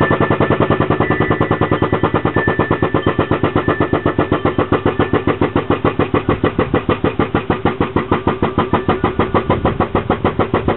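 Foot-operated hydraulic pump running a hydraulic bead-breaker tool, a loud, rapid, even chatter of several pulses a second that slows slightly toward the end, as the tool is forced down to break a tire bead off a split-ring rim.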